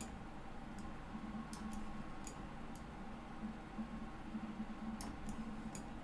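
Faint, scattered clicks of a computer mouse being pressed and released while dragging a piece on screen, in two small clusters over a low steady hum.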